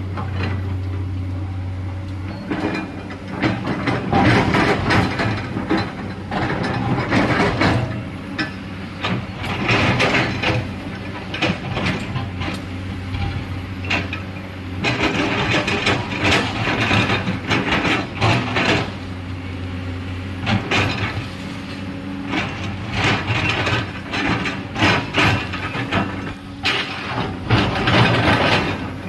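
Diesel excavator engine running steadily, then from about two seconds in working under load in repeated bouts, with the bucket scraping and clattering through rock and soil as it cuts into a hillside.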